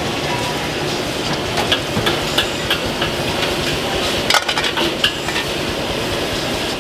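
Irregular sharp metallic clinks and knocks of utensils against cookware, a cluster of them a little past the middle, over a steady noisy hiss.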